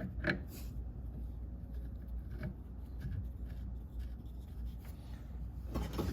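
Faint rubbing and a few light clicks as a metal bicycle pedal is threaded onto the crank arm by hand, over a low steady hum.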